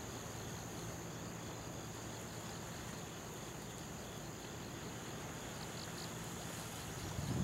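Steady low hum of the ferry Ferry Fukuoka 2 underway, under an even background hiss with a constant thin high-pitched tone.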